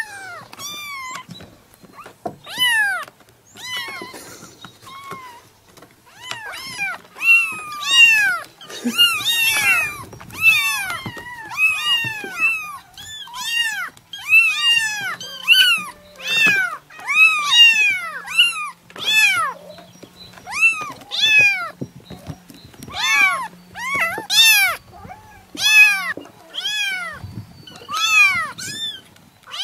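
Several young kittens crying, high-pitched meows that rise and fall in pitch, repeated over and over and overlapping, a few each second.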